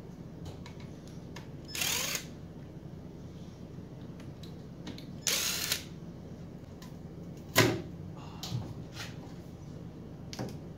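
Cordless impact driver run in two short bursts, about two and five seconds in, the first with a rising whine as it spins up, driving screws into the lathe's metal control box. Scattered clicks and knocks of handling, the loudest a sharp knock about seven and a half seconds in.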